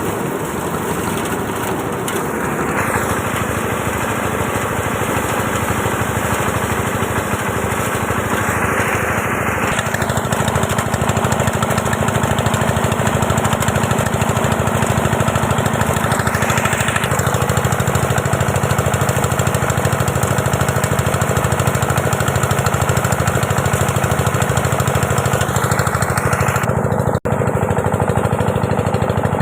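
Small engine running steadily, its pitch shifting slightly about ten seconds in and again about seventeen seconds in; the sound drops out for an instant near the end.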